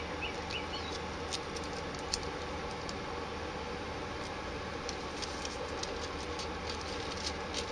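Steady background hum with light, scattered ticks and crinkles from hands handling a roll of silicone tape and its clear plastic liner. The ticks come a little more often near the end.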